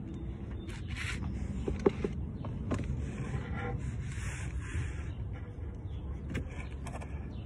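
Scraping and rubbing handling noises, with one sharp click about two seconds in, over a low steady rumble.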